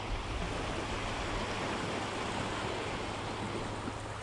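Small waves breaking and washing up over shallow sand at the water's edge, a steady rush of surf.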